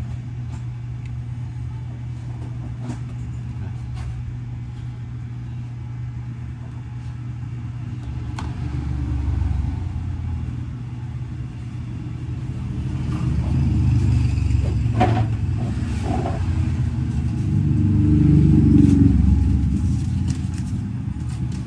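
A steady low hum, with a deeper rumble that swells and fades three times.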